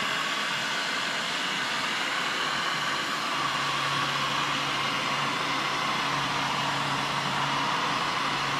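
Electric heat gun blowing steadily, its fan and heating element running as it is held against a tail light to heat the tint film. A low hum joins about three seconds in.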